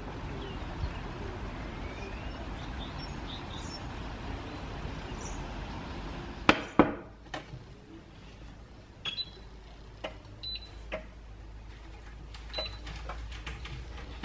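Steady hiss of rain; about halfway through it gives way to two loud clanks of a stainless steel saucepan set down on a glass induction hob, then light clicks and a few short, high beeps from the Bosch hob's touch controls being pressed.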